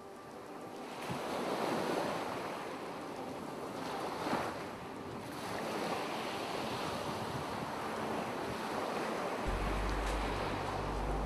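Ocean surf washing onto a shore, the rush swelling and easing wave by wave; a low steady hum comes in near the end.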